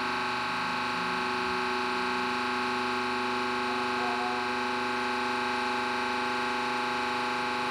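Hydraulic press pump running with a steady, unchanging hum of several tones while the ram presses down on an MDF board under rising load.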